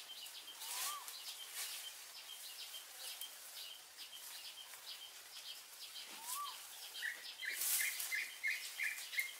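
Forest birds calling: rapid high chirps run throughout, a short rising-then-falling whistle comes twice, and a quick run of about eight notes starts near the end. Brief rustles are mixed in.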